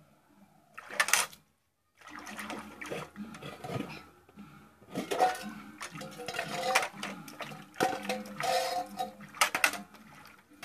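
Water splashing in a metal bucket as a hand scoops and pours it, with steel dishes and a bowl clinking and knocking against the bucket, irregular knocks over a steady splashing.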